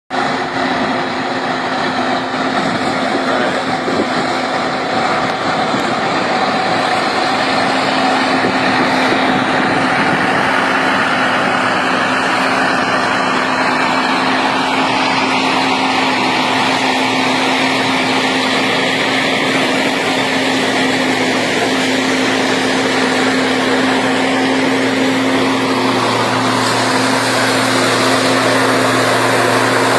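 Heavy road-building machinery running with a steady engine drone and mechanical noise; a lower hum comes in near the end.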